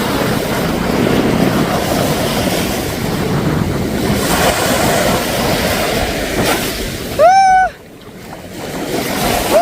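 Sea waves surging and breaking on a beach, a steady loud rush of surf. About seven seconds in, a short high-pitched call sounds once over the surf.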